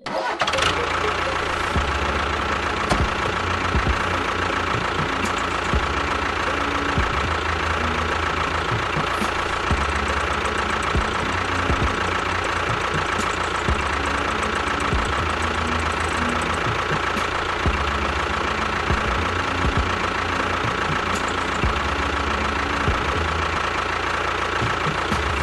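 Small motor running steadily with a constant whine. It starts abruptly and holds an even pitch and level throughout.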